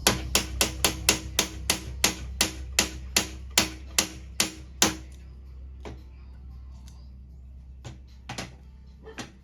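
Hammer tapping on metal, about fifteen sharp strikes at roughly three a second, each ringing briefly, then a few scattered taps near the end.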